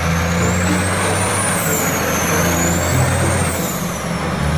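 Heavy diesel tow truck driving past: a steady low engine drone under loud road and running noise, with a thin high whistle that rises and falls.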